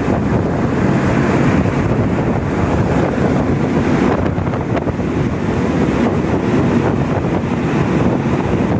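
Wind buffeting the microphone on the open deck of a container ship under way, over the ship's steady low rumble and the rush of its wake alongside.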